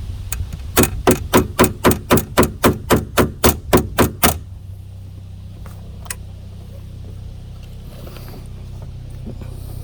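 A hammer taps rapidly and evenly, about four blows a second, driving out a pin on a car door's latch mechanism. The hammering stops about four seconds in, leaving a low steady hum.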